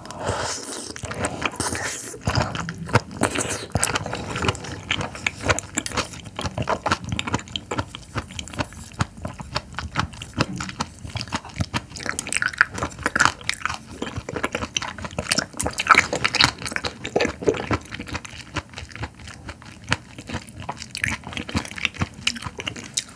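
Close-miked eating of a raw triploid oyster: the meat is slurped from its half shell and chewed, giving wet mouth sounds with many small smacks and clicks.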